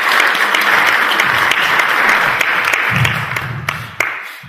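Audience applauding, with the clapping dying away near the end and a single sharp knock about four seconds in.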